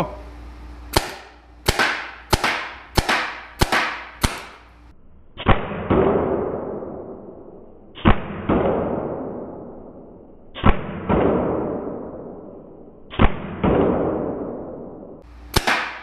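Tippmann TiPX paintball pistol firing glow-in-the-dark paintballs. It starts with six quick shots about two-thirds of a second apart. Then come four pairs of shots a few seconds apart, each pair followed by a long ringing fade, and two more quick shots near the end.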